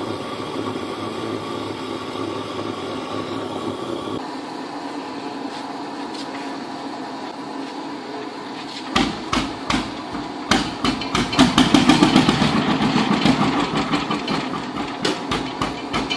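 A vintage single-cylinder tractor engine is hand-turned by its flywheel and catches on a cold start. From about nine seconds in it fires with sharp irregular knocks that quickly settle into a fast, even knocking beat. Before that there is only a steady mechanical hum.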